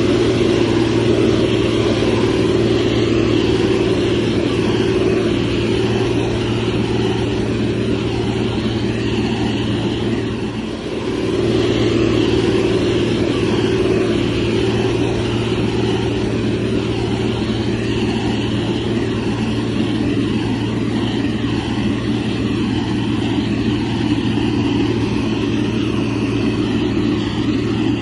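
Motor grader's heavy diesel engine running steadily under load, its deep hum dipping briefly about ten seconds in before picking up again.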